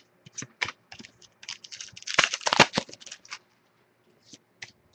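Trading cards and pack wrappers being handled at a table: a run of light clicks and scratchy rustles, busiest and loudest about two seconds in, thinning to a few scattered clicks near the end.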